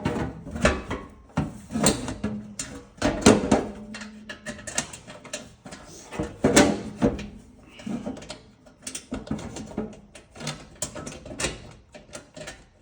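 Sheet-metal side panel of a John Deere 318 garden tractor being handled and fitted back on: a run of irregular metal knocks and clatters, the loudest near the start and around the middle, with lighter, quicker taps later.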